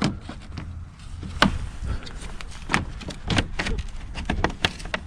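Scattered plastic clicks and knocks as the front grille of a Mercedes C-Class W204 is handled and fitted back into place, over a low steady rumble.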